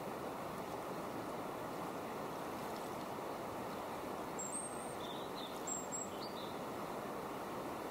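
Steady rush of flowing river water, with a few short, high bird chirps about halfway through.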